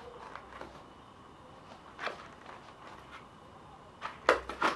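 Leather belt holster being handled and shifted on a belt: soft rustling with a sharp click about two seconds in, then a quick run of loud sharp clicks and knocks near the end.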